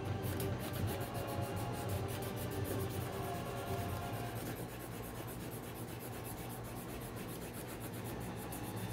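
Felt-tip marker scribbling on paper in quick back-and-forth strokes, a fast, even scratching rhythm of several strokes a second while an area is being coloured in.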